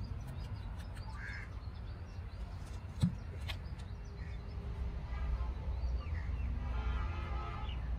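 Crows cawing, with a longer, harsher call near the end, over a steady low rumble. A single sharp knock comes about three seconds in.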